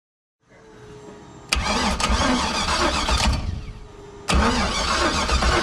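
Starter motor cranking the engine over in short bursts to turn the water pump and push coolant through while the cooling system is being bled. It cranks for about two seconds, stops, and cranks again about a second later.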